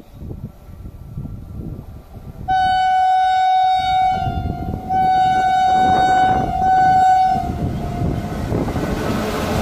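Indian Railways electric locomotive sounding its horn three times: two long blasts and a short one. Under the horn, the rumble of the approaching train on the rails grows louder toward the end.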